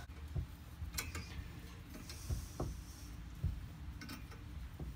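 A handful of light, irregular clicks and taps from a C-clamp valve spring compressor working against a VW cylinder head as a valve spring and cup are pressed down to fit the keepers.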